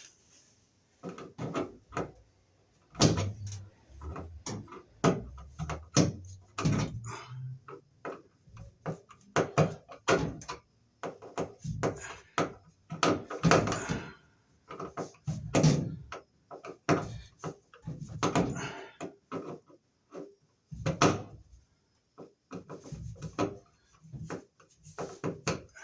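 Hand work with a screwdriver on a wall receptacle and its old work box: a run of irregular clicks, knocks and scrapes, with some low thuds a few seconds in.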